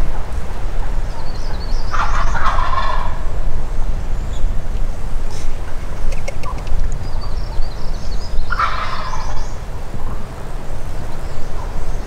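Wild turkey gobbler gobbling twice, about six seconds apart, over a steady low rumble of wind on the microphone.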